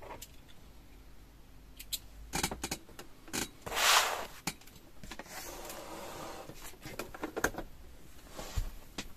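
Fabric rustling and dragging as a sewn garment of black knit and sheer scarf fabric is handled and taken off the sewing machine, with scattered small clicks and knocks. The loudest rustle comes about four seconds in, and a longer, softer one follows.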